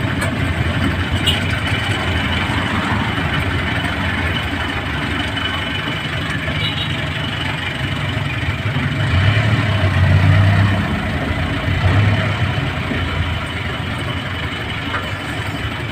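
Passenger jeepney's engine running under way, heard from the driver's seat, with steady road noise. The engine hum swells briefly past the middle.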